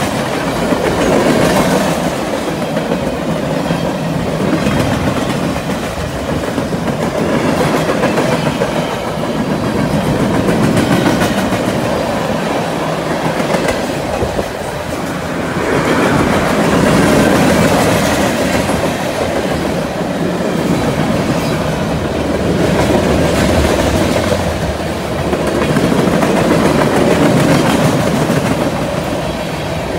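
Freight cars of a long train rolling past close by: steel wheels rumbling on the rails with clickety-clack over the rail joints, the sound swelling and easing every few seconds.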